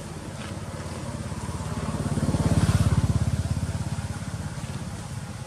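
A motor vehicle's engine passing by with a fast, even throb, growing louder to a peak about halfway through and then fading away.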